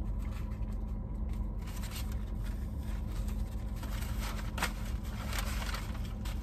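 Chewing and the crinkling rustle of a foil sandwich wrapper, with one sharper crinkle about four and a half seconds in, over a steady low hum in a parked car's cabin.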